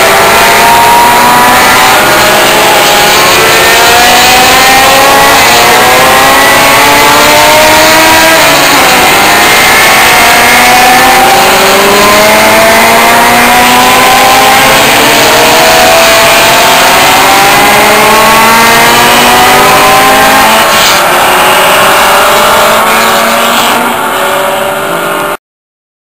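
Engines of several historic single-seater racing cars accelerating out of a corner one after another, overlapping and repeatedly rising in pitch as they rev through the gears. The sound cuts off abruptly near the end.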